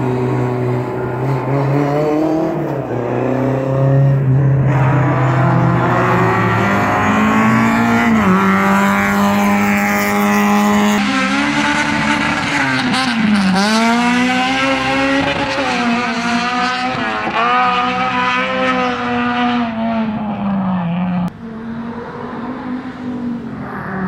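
Rally car engines at full throttle, their pitch climbing and then dropping at each gear change or lift-off, with some tyre squeal as a hatchback slides around the obstacles. The engine sound cuts abruptly near the end.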